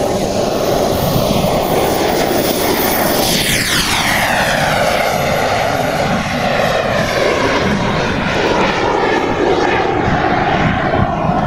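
Model jet turbine of a giant-scale RC Tornado at full power on its takeoff run: a high whine over a steady rush. The pitch drops as the jet passes, about three and a half seconds in, and the engine keeps running loudly as the jet climbs away.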